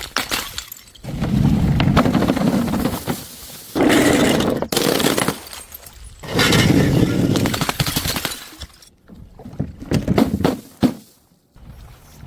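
Things being crushed and broken: three long crunching, breaking bursts of one to two seconds each, followed by scattered sharp cracks and clicks in the last few seconds.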